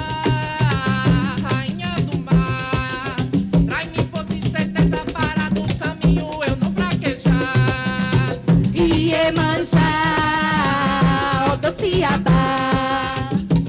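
Coco de roda music played live: a voice sings phrases with short breaks over a dense rhythm of hand percussion, with a shaker and a steady, low drum beat.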